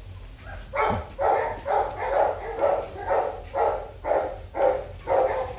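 A dog barking or yelping over and over, about two short calls a second, starting about a second in.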